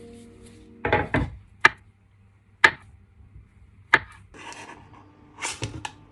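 Knife slicing bananas on a wooden cutting board: about five separate sharp knocks of the blade on the board at uneven intervals, with short scraping sounds near the end.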